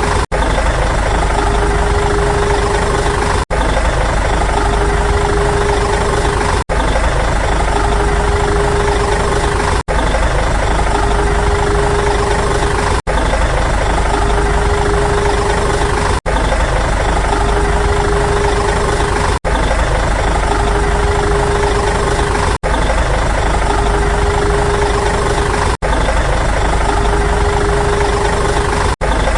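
Engine idling sound effect: the same clip of about three seconds loops over and over, with a brief cut each time it restarts.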